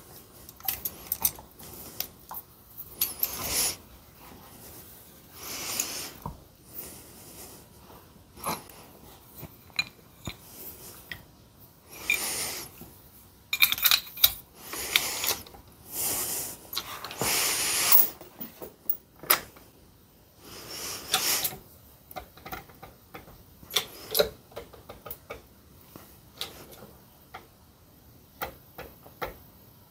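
Irregular metallic clicks and clanks from a chained bottle-jack press being worked on a harmonic balancer, with a few louder short rushes of noise in between.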